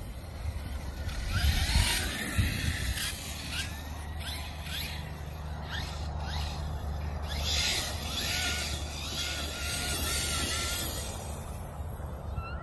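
Arrma Kraton RC car's brushless electric motor whining, rising and falling in pitch as the car speeds up and slows on several runs. Bursts of rushing noise come with the loudest passes, about two seconds in and again around ten seconds in.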